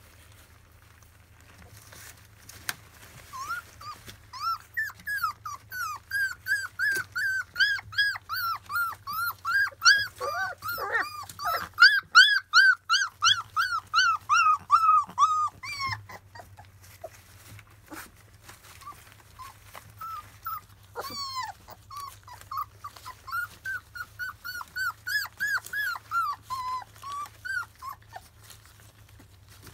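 Labrador retriever puppies, 25 days old, whimpering in rapid, high-pitched squeaks, about three or four a second, as they crowd around a food dish. The squeaking comes in two runs, louder in the first, with a few lower calls in the middle of it.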